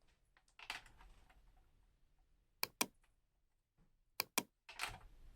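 Faint, sharp clicks or taps, about six of them: a single one, then two close pairs and a short cluster.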